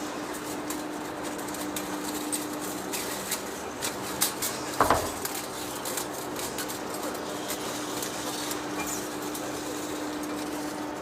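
Heavy face lathe running with a steady hum, with scattered metallic clinks and one louder clank near the middle.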